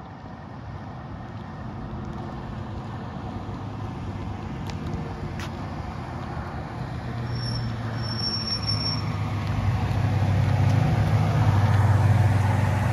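Lifted GMT800 Chevrolet Silverado pickup on 37-inch tyres driving up toward the microphone, its engine running low and steady and growing louder as it nears, loudest near the end.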